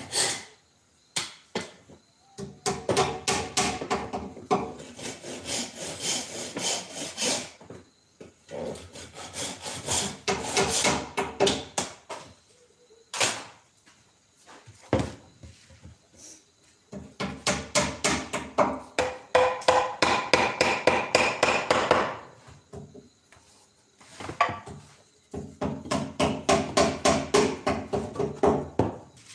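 A curved wooden piece being worked by hand in rapid back-and-forth strokes, wood rubbing on wood or abrasive. It comes in four bursts of several seconds each with short pauses between.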